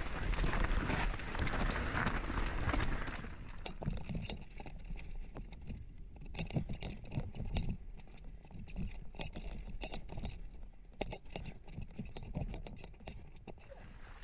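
Mountain bike riding down a rough forest trail, heard from a helmet-mounted camera. For the first few seconds wind rushes on the microphone. Then comes a fast, uneven clatter of knocks and rattles from the bike running over roots and rocks and from the Fox Proframe RS full-face helmet rattling on the rider's head.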